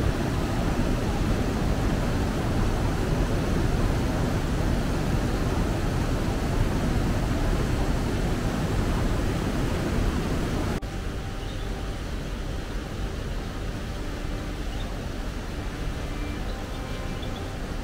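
Mountain stream rushing over rocks, a steady dense noise. About eleven seconds in it cuts to a quieter ambience with a few faint steady tones.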